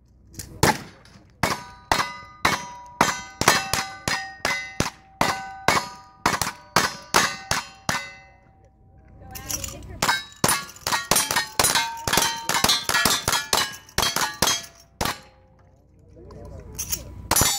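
Rapid gunshots from two shooters firing at steel plate targets, each shot followed by the ring of a struck steel plate. Two fast strings of shots, with a short pause about eight seconds in and another a little after fifteen seconds, then a few last shots near the end.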